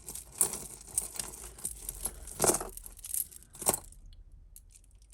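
Costume jewellery being handled and sorted: rustling with several sharp metallic clinks, the loudest about half a second, two and a half and three and a half seconds in, then quieter.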